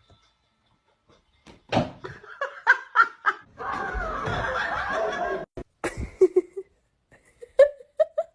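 A person laughing in short bursts. A couple of seconds of steady noise fall in the middle.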